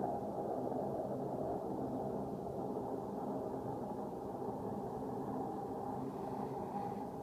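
A steady roaring drone with a held hum on top, unbroken and unchanging, of the kind passed around as an unexplained 'strange sound' in the sky; its source is unknown.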